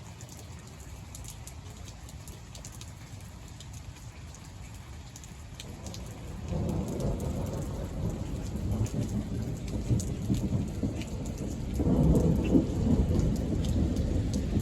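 Rain falling, with scattered sharp drop ticks, and thunder rumbling in about six seconds in and swelling louder again near the end.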